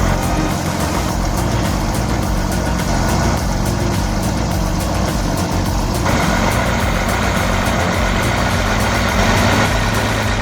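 Heavy machinery engine running steadily; the sound turns brighter about six seconds in.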